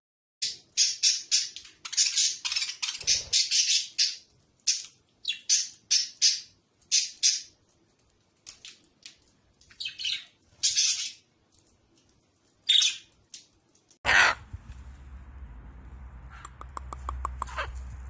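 Small pet parrots calling: a long run of short, shrill screeches, several a second with short pauses, thinning out towards the middle. About fourteen seconds in they give way to a steady low hum, a sudden loud burst and then a quick run of clicks.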